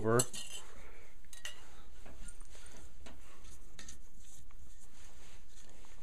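Metal screw bands being twisted off the lids of sealed glass canning jars and set down: faint scattered clinks and scrapes of metal on metal and glass.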